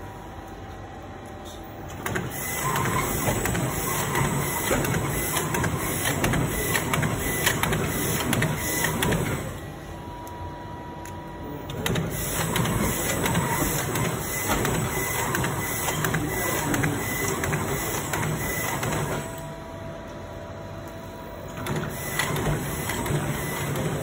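Servo-driven six-lane plastic bag-making machine running: a dense mechanical clatter of rapid clicks from its feed, heat-sealing and cutting cycles. It drops to a quieter hum for a couple of seconds about every ten seconds.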